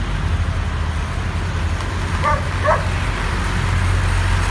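Tractor diesel engine running steadily, getting a little louder toward the end as a Massey Ferguson 565 draws near. A dog barks twice, short and sharp, about two seconds in.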